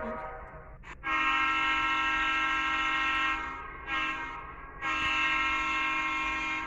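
Train horn sounding a long blast, a short blast, then another long blast, each a steady chord of several tones. The end of an earlier horn fades out in the first second.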